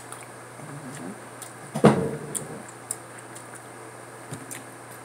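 One loud knock about two seconds in, with a few faint clicks around it.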